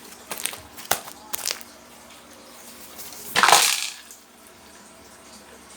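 Homemade slime squelching and popping as it is worked by hand: a few short wet clicks, then one louder squishing rush about three and a half seconds in.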